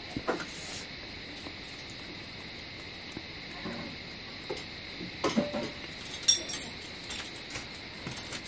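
Scattered light clinks of a spoon against a metal plate, the sharpest a little past six seconds in, over a steady high insect chirring.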